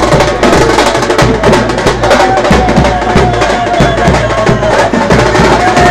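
Drums beating quickly and loudly in a steady rhythm, with a wavering held tone above them, as at a street procession.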